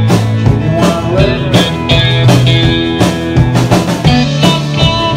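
Live country band playing: acoustic guitar, bass and drums with a steady beat.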